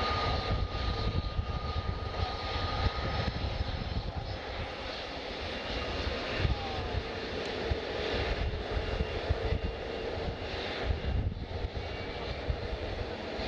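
Jet airliner engines running, a steady loud rumble with a thin whine in the first few seconds.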